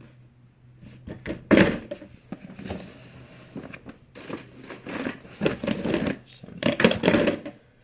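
Fidget toys being handled and rummaged through: irregular plastic clattering and rustling, loudest about a second and a half in and again near the end.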